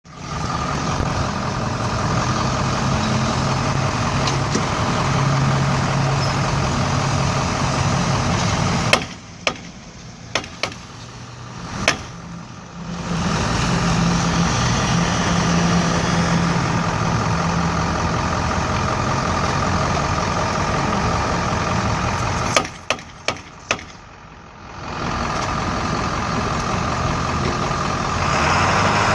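A 2007 GMC 4x4 pickup running steadily, with two quieter stretches in which a few sharp snaps ring out. The snapping comes from a front wheel hub with a broken ball bearing, bad enough to stop the truck rolling.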